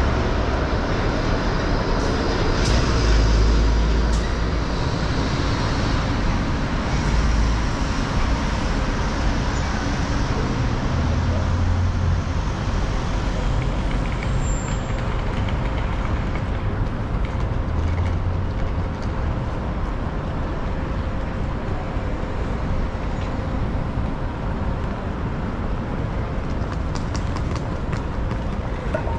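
Steady rumble of heavy vehicles with a faint steady hum, and several deeper rumbles swelling up in the first half.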